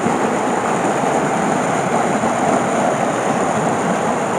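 Shallow woodland stream running over rocks: a steady rush of flowing water.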